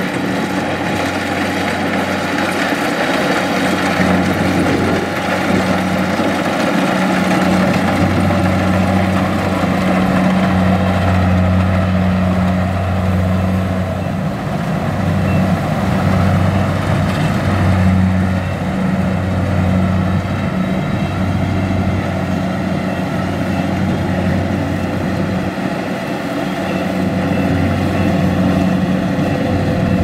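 Kubota combine harvester running at work: its diesel engine and harvesting machinery make a loud, steady drone, with a low hum that swells and fades every few seconds.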